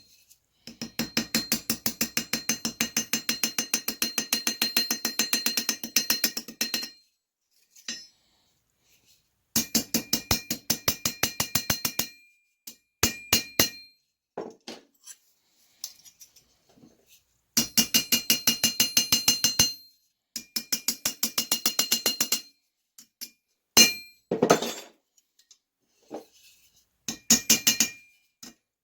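Small rivet hammer tapping on metal in quick runs of about five light, ringing taps a second, with pauses and a few single knocks between the runs.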